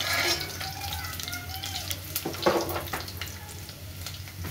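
Chopped garlic sizzling in hot oil in an aluminium pot, stirred with a steel ladle that knocks and scrapes against the pot now and then.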